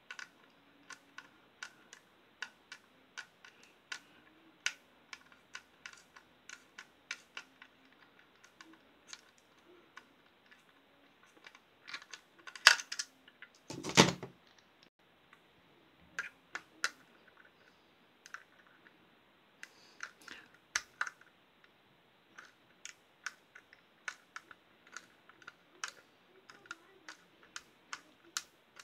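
Irregular small clicks and taps of a screwdriver working at stiff screws in a plastic night-light housing, with two louder knocks about halfway through.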